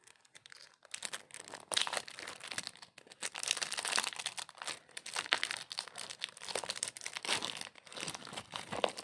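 Plastic wrapping on a box of floppy disks crinkling and crackling as it is handled and pulled at, starting about a second in.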